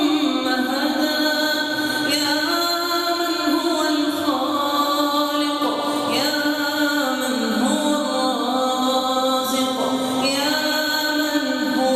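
A single voice chanting Arabic religious recitation in long, melodic, drawn-out notes that slide from pitch to pitch without a break.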